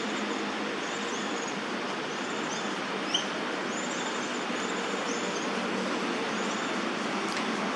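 Steady hum of city traffic around the park, with short high chirping notes repeated every second or so and one brief sharp note about three seconds in.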